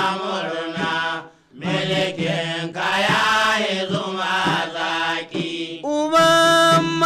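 Hausa praise song: voices singing in a chanting style, with a short break about one and a half seconds in and a long held note near the end.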